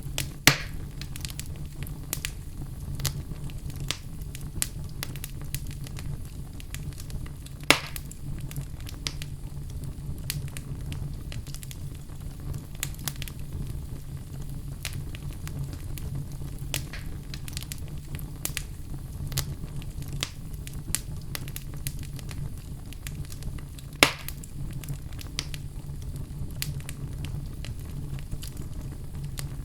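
Wood fire burning in a fireplace: a steady low rumble of the flames with frequent small crackles and three louder pops, near the start, about a third of the way in and about four-fifths of the way in.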